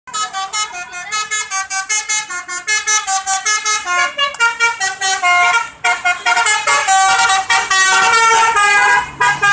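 Bus telolet basuri musical horn playing a tune as a fast run of short notes stepping up and down, settling into longer held notes over the last few seconds.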